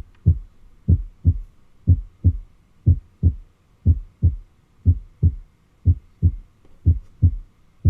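Normal heart sounds, S1 and S2, as heard on auscultation: a steady lub-dub, about one beat a second.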